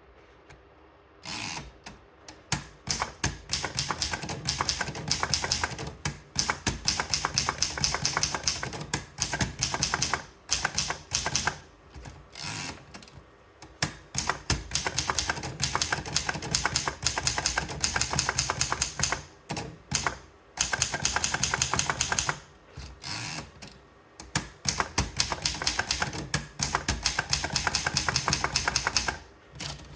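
A Remington Portable manual typewriter being typed on: rapid keystrokes in runs, broken by short pauses, starting about a second in.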